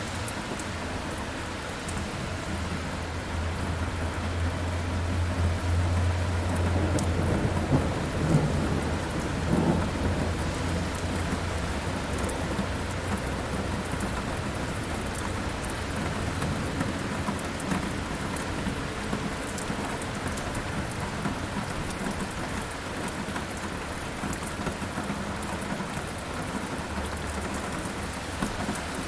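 Thunderstorm: steady rain falling, with a long low roll of thunder that builds a few seconds in, peaks with some sharper cracks around eight to ten seconds in, then fades back under the rain.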